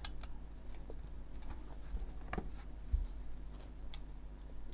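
Plastic building bricks being handled and pressed onto a model: a few faint, scattered clicks and taps over a low steady hum.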